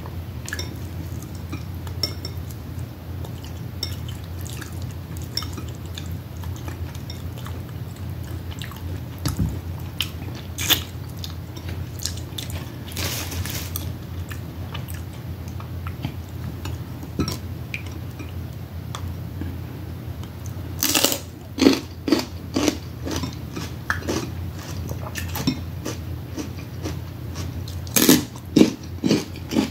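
Crab shells cracking and crunching, with chewing, close to the microphone: scattered sharp cracks, loudest in clusters about two-thirds of the way in and again near the end, over a steady low hum.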